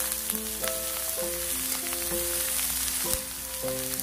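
Sliced vegetables and mushrooms sizzling gently on a low-heat grill pan, with scattered small crackles. A slow melody of background music plays over it.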